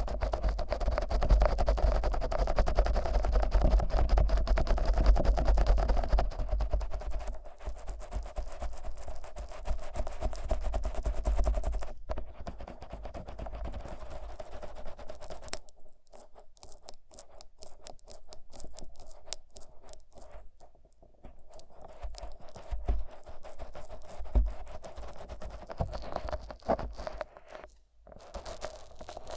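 Fingers rubbing thick Vaseline over the silicone ears of a 3Dio binaural microphone: close, sticky scratching and rubbing. It is loudest in the first several seconds, then softer, with a few brief moments where the sound drops away in the second half.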